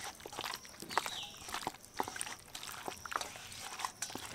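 A hand squeezing and turning raw chicken pieces in a thick yogurt-and-spice marinade in a stainless steel bowl: irregular wet squelches and small clicks of meat and fingers against the metal.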